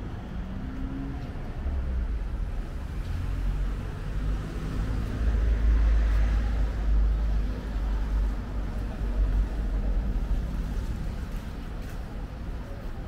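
Road traffic: a vehicle passing on a town street, with a low rumble and tyre noise that swell to their loudest about six seconds in and then fade.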